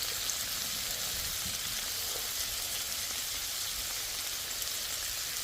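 Ground beef with onions and peppers sizzling steadily on a Blackstone flat-top griddle.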